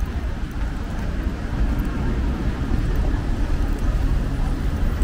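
Steady street traffic noise on wet roads: a continuous deep rumble of engines and tyres with a hiss over it.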